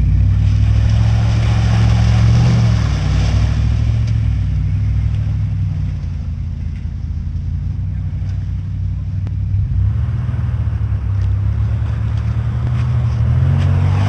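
Vehicle engine running under load, revving up about two seconds in, easing off, then rising again near the end, while a stuck two-wheel-drive truck is towed out of a creek.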